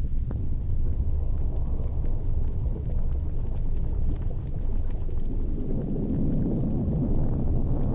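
Steady low rumble and wind noise inside a moving ropeway gondola cabin, thickening a little in the low-middle range near the end.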